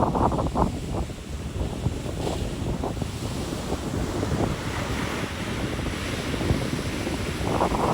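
Ocean surf washing on a beach, with wind buffeting the microphone in gusts. The buffeting is heaviest at the start and again near the end.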